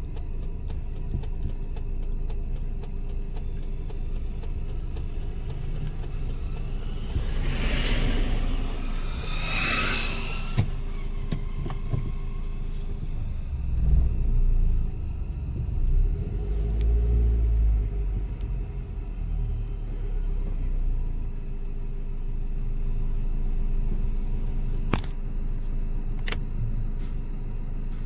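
Steady low rumble of engine and road noise inside a moving car's cabin. Two oncoming vehicles rush past about eight and ten seconds in, and the rumble swells deeper and louder between about fourteen and eighteen seconds in.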